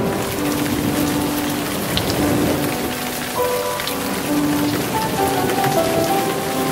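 A dense patter and crackle like rain, heard over slow music with long held notes.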